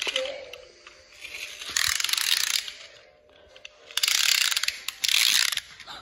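Pull-back toy car motors being wound: three bursts of rapid ratcheting whirr as the cars are dragged backward over the floor, the second and third close together near the end.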